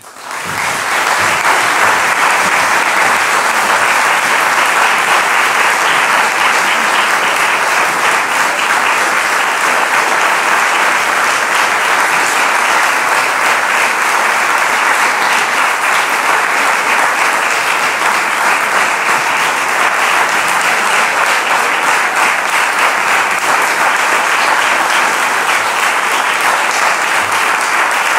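Audience applauding, swelling up within the first second and then holding steady and dense.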